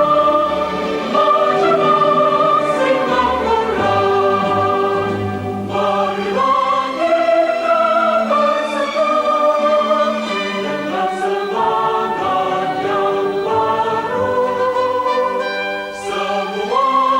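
Classical-style choral music: many voices singing held notes that change in steps, with light instrumental backing.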